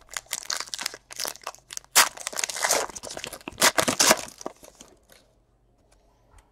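Foil wrapper of a trading-card pack being torn open and crumpled by hand, crinkling and crackling for about five seconds, loudest in the middle, then dying away.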